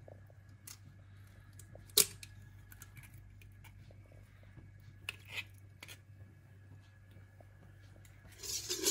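Quiet kitchen handling at a stainless steel mixing bowl as ingredients go in. There is one sharp knock about two seconds in, then a few faint clicks and taps about halfway through, over a low steady hum.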